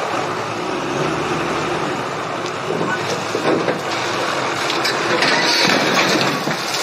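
Heavy yard loader's engine running close by as it carries a load of crushed car bodies, a steady mechanical noise that grows harsher and brighter about five seconds in.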